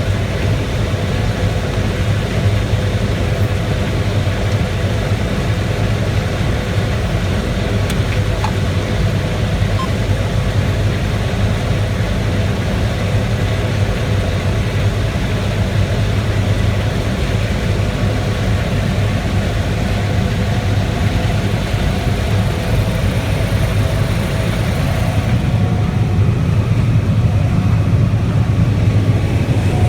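Large diesel farm machine engine running steadily with a deep, even hum, growing a little louder and duller near the end.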